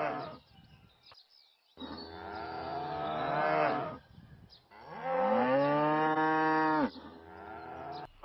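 Cow mooing: the end of one call, then two long moos of about two seconds each, the second the loudest, and a fainter call near the end.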